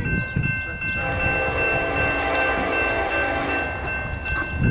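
Union Pacific lead diesel locomotive's air horn sounding one long chord for nearly three seconds, starting about a second in, over the low rumble of the approaching locomotives. A grade-crossing bell rings steadily throughout.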